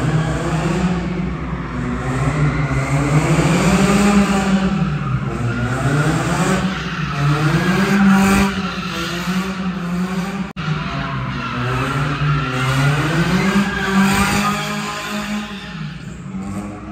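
A car drifting: its engine revving up and down again and again while the tyres squeal. The sound breaks off for an instant about ten seconds in.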